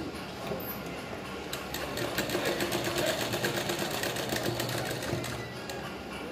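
Sewing machine stitching through layered cloth ruffles. From about a second and a half in it runs at a fast, even stitch, then eases off near the end.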